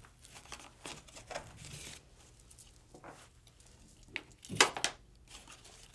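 Cord and beads being strung through slits in a corrugated cardboard abacus frame: beads clicking, cord rasping through the cardboard, and cardboard rustling, with the loudest scrape and clicks about four and a half seconds in.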